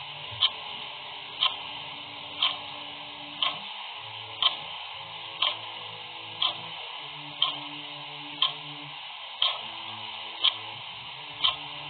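Clock ticking steadily, one tick each second, over a steady background hiss.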